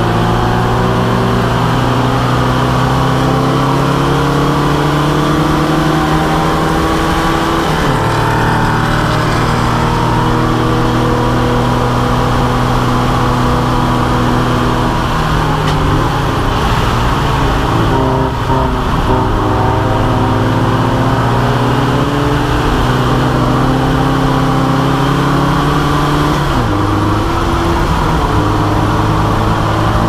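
A racing Volkswagen Beetle's air-cooled flat-four engine heard from inside the car's cabin under hard acceleration. Its pitch climbs steadily and drops sharply at gear changes about eight seconds in and again near the end. Around the middle the pitch falls away and then climbs again.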